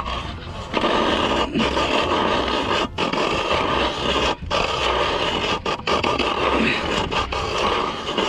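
Hand-cranked ice auger drilling into lake ice: its blades scrape steadily as the handle is turned, with a few brief breaks.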